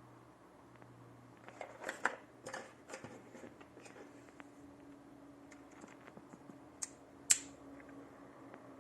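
Handling noises: a run of rustles and clicks, then two sharp clicks near the end, the second the loudest, over a faint steady hum.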